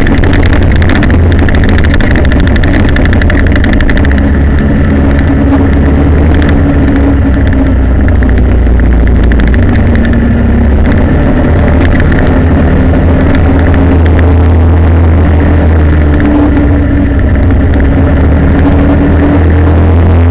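Engine of a moving road vehicle running steadily under a loud low rumble of road and wind noise, its pitch shifting slightly now and then with speed.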